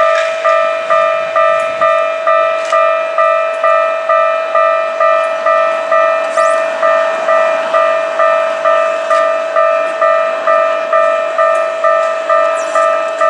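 Japanese railway level-crossing warning bell ringing, an electronic ding struck a little over twice a second, each strike fading before the next.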